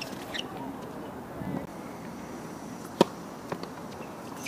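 Tennis ball strikes on an outdoor hard court: a couple of light knocks at the start, then one loud, sharp hit about three seconds in, followed by a fainter knock, over faint voices.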